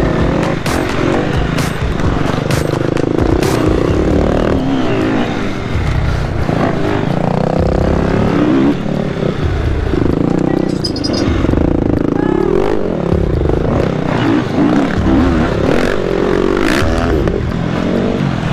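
Enduro dirt bike engine being ridden hard on a dirt trail, its revs rising and falling again and again as the throttle is worked, with a few knocks and clatter from the bike over rough ground.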